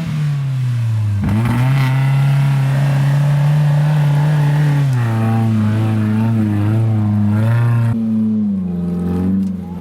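Suzuki Vitara's engine revving hard under load, held at high revs for several seconds. The revs dip briefly about a second in, then step down around the middle and again near the end.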